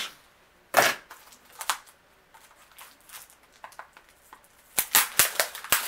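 Plastic blu-ray case being handled and worked open: a sharp click about a second in, a few faint ticks and rustles, then a quick run of clicks and snaps near the end.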